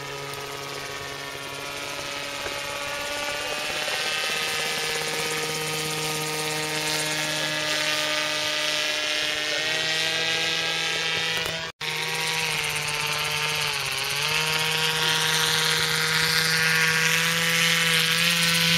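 Engine of a large radio-controlled model autogyro, driving its pusher propeller in flight with a steady pitched drone. The sound breaks off for an instant about midway, and the engine pitch dips and wavers in the second half as the throttle changes.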